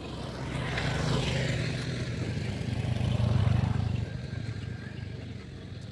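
A motor vehicle's engine passing close by, its hum growing louder over about three seconds and then dropping away about four seconds in.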